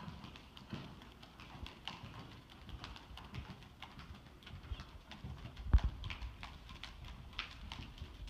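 Hoofbeats of a ridden horse moving on sand arena footing: soft, repeated thuds with light clicks. One much louder thump comes a little past halfway.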